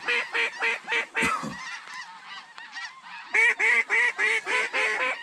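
Snow geese calling overhead: a fast run of high, yelping honks, about four a second, that thins out briefly near the middle and comes back strongly about three and a half seconds in.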